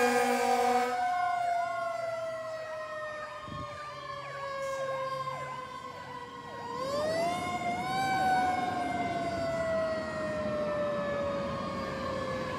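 Fire engine's siren: a slow-falling siren wail winds down, is wound back up about seven seconds in and then falls slowly again, over a faster electronic yelp. A steady horn blast ends about a second in, and the sirens grow fainter as the engine drives away.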